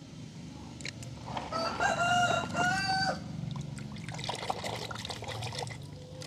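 A rooster crowing once, for about a second and a half, over a low steady rumble, followed by a few seconds of irregular crackling.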